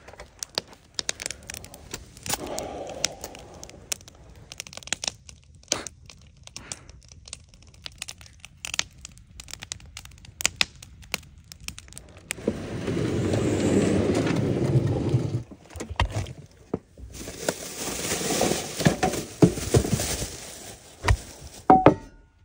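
Wood campfire crackling with many sharp pops, and a louder steady rush of noise for about three seconds midway.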